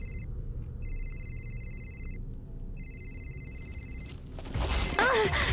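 A mobile phone ringing with a high electronic ring tone, heard as three bursts of ring with short gaps, over a low rumble. Near the end the ring stops and a loud burst of noise cuts in.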